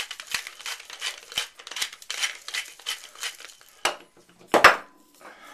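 Pepper mill grinding over a bowl in a run of quick, crunchy twists, about three or four a second. Near the end the grinding stops, with a click and then a louder knock.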